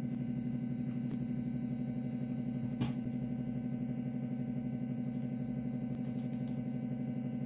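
Beckhoff AS1000-series stepper motor turning very slowly, giving a steady low hum with a fast, even pulse from its steps. A single click sounds about three seconds in.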